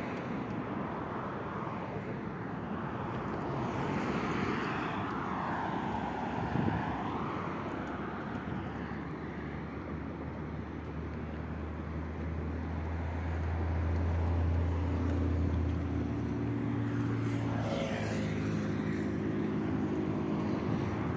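Road traffic passing on a multi-lane street: a steady rush of tyres and engines, with a low engine drone that swells and peaks around the middle before settling into a steady hum.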